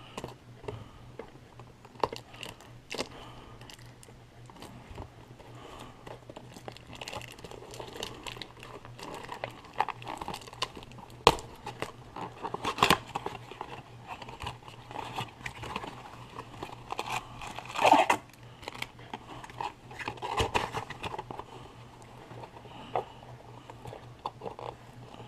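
A cardboard trading-card blaster box and its wrapping being torn open and handled: irregular crinkling, tearing and rustling, with a few sharper rips and knocks, the loudest about 11 and 18 seconds in.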